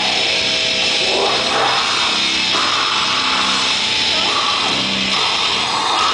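Live heavy rock band playing loud through the PA: distorted electric guitar, bass guitar and drum kit, with vocals into the microphone.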